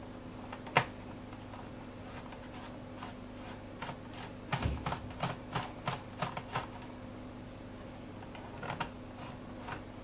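Light clicks and taps of a screwdriver working the screw that holds the optical drive in a plastic laptop base, with a quick run of clicks between about four and seven seconds in.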